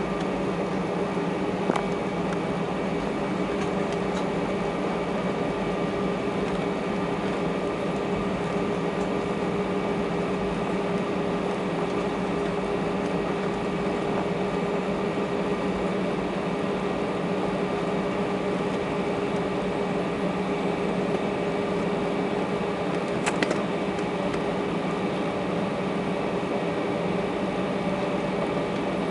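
Steady cabin noise inside an Airbus A319 taxiing with its engines at idle: an even hum of engine and air-conditioning noise with several steady tones. Two faint clicks, one about two seconds in and one near the end.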